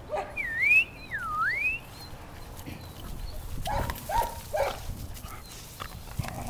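Puppies yipping in play: two high gliding calls in the first two seconds, then three short sharp yips in quick succession about four seconds in.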